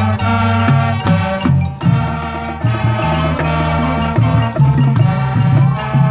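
High school marching band playing its field show: sustained chords over a bass line that moves from note to note.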